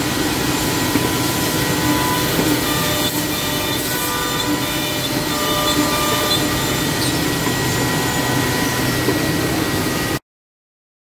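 A 10-head (5×2) CNC mortising and routing machine running on wooden chair-leg parts: dense machining noise with a steady high whine from its spindles. The sound cuts off suddenly about ten seconds in.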